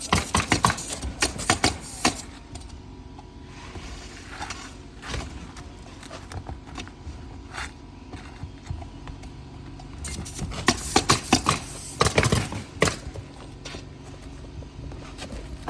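Steel flat bar prying roofing nails out from under asphalt shingles: bursts of metal clicks and scrapes near the start and again about ten seconds in, with a quieter stretch between.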